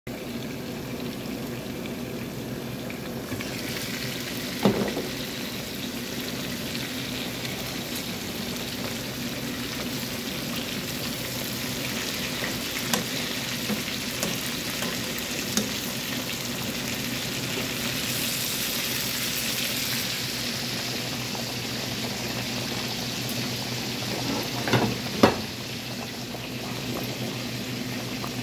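Chicken breasts frying in oil in a pan, a steady sizzle throughout. Sharp clinks against the pan come about five seconds in and twice near the end.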